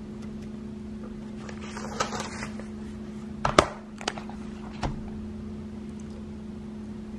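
Paper notebook being handled, with a short rustle about two seconds in and a few sharp clicks and taps, the loudest about halfway through, over a steady low electrical hum.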